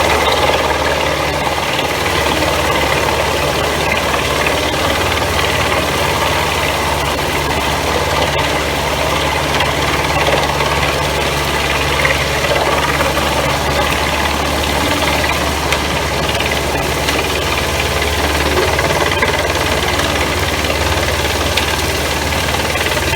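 New Holland tractor engine running steadily, driving a Pezzolato PTH 1000/1000 G drum wood chipper through its PTO, with a deep even hum and a constant mechanical clatter.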